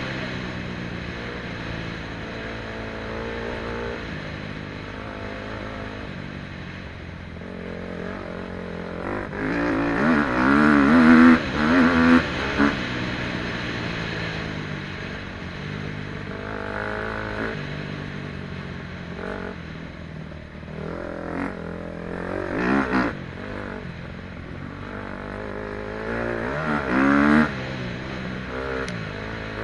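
KTM 250 SXF four-stroke single-cylinder dirt bike engine under way, the throttle opened and eased off again and again so the pitch rises and falls. The loudest pulls come about a third of the way in, again past the middle, and near the end.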